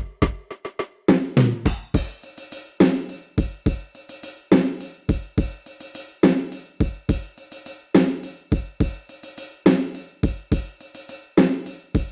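Sampled drums from the Ketron SD90 soundfont playing a steady groove: heavier hits with a low, pitched body come about every second and a half, with quicker, lighter strokes and cymbal or hi-hat ticks between them.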